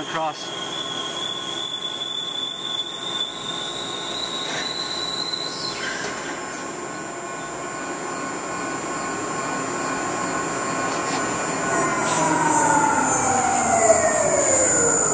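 Pipe facing lathe's spinning facing head cutting a serrated face into a steel pipe end with a carbide insert: a steady whine and squeal of metal cutting, with a high tone creeping up in pitch over the first several seconds. In the last few seconds the tones fall steadily in pitch and grow louder as the facing head slows.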